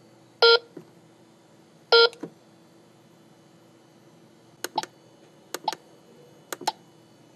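Biometric fingerprint time clock beeping twice, about a second and a half apart, as it reads the finger presses during fingerprint enrollment. It is followed by three quick double clicks of its keypad buttons being pressed.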